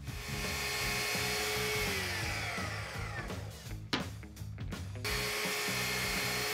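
Festool Kapex sliding miter saw cutting poplar strips to length, twice: each time the motor starts suddenly with a high whine, runs steadily, then its pitch falls as the blade winds down. A sharp click comes between the two cuts, with background music beneath.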